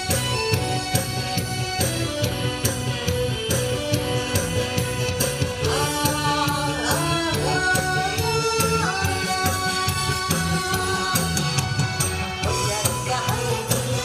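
Korean trot song with a steady drum-and-percussion beat, an instrumental melody line in the middle, and a woman singing live over the accompaniment.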